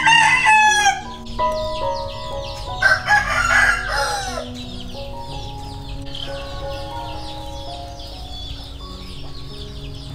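A rooster crowing twice: one crow at the start and a second about three seconds in.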